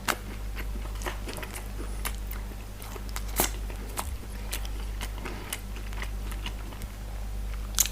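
Close-miked person chewing and biting pizza, with irregular sharp wet mouth clicks and crunches, a louder one about three seconds in and another near the end, over a steady low electrical hum.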